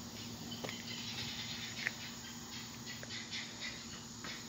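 Faint outdoor background of footsteps on asphalt, with scattered light ticks over a low steady hum.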